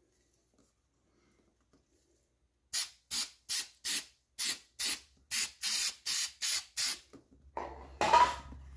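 Aerosol spray-adhesive can spraying in about a dozen short, quick hisses onto the back of a vinyl trim piece, starting a few seconds in. A brief, louder rustle follows near the end.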